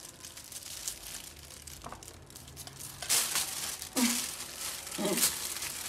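Thin disposable plastic glove crinkling as it is pulled off a hand, a few rustles starting about three seconds in.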